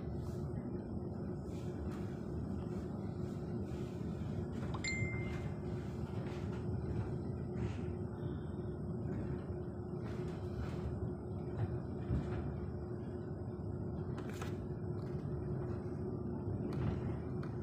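Steady rumble of a passenger train running at speed, heard inside the carriage, with a constant low hum and occasional faint clicks. A brief high beep sounds about five seconds in.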